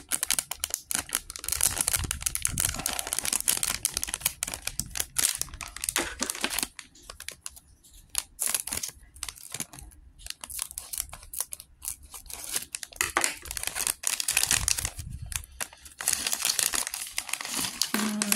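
A LEGO Minifigures blind bag being torn open and crinkled by hand, in stretches of dense crackling broken by short pauses.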